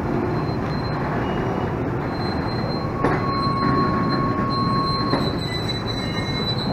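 Empty container flat wagons of a freight train rolling past on the rails, with a steady rumble of wheels and a thin, high squeal through most of it. A second, lower squeal joins from about three seconds in and stops near five seconds.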